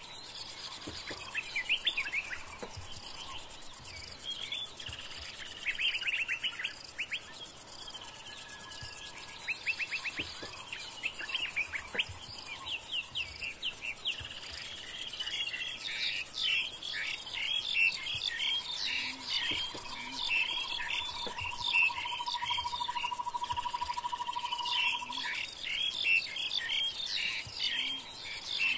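Bush ambience: a steady high drone of insects with many birds chirping and calling over it, busier in the second half, and one long even trill lasting several seconds past the middle.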